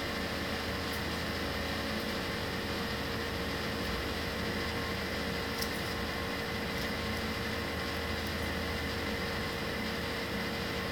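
Steady background hum and hiss, such as a running fan or air conditioner makes, with a few faint ticks from paper being handled.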